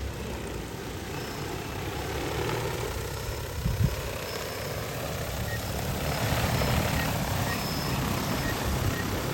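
DJI Agras T20 crop-spraying drone's rotors whirring steadily as it flies, growing louder in the second half as it comes closer. A short bump about four seconds in.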